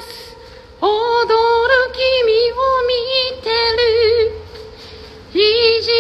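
A woman singing a melody alone in a high voice, holding long wavering notes. She sings one phrase, pauses for about a second, then starts another near the end.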